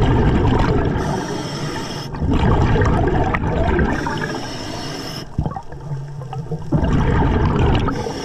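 Scuba diver breathing through a regulator underwater: a rush of exhaled bubbles about every three seconds, with quieter inhales between.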